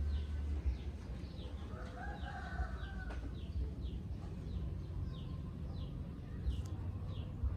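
Birds calling: a small bird chirping steadily, about two short falling chirps a second, and a longer, lower pitched call about two seconds in that lasts about a second, over a low hum.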